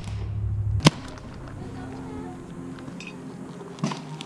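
Paintball markers firing: a sharp pop at the very start and another just under a second in, then a softer one near the end.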